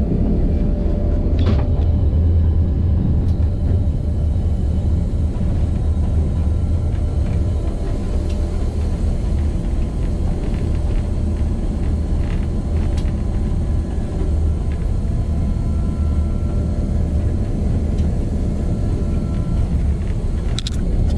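Diesel locomotive heard from inside its cab while running: a steady, deep rumble of engine and rolling train, with a few brief clicks.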